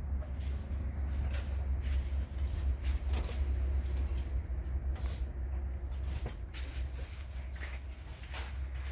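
Footsteps crunching irregularly on dry sand and brittle dry brush, over a steady low rumble.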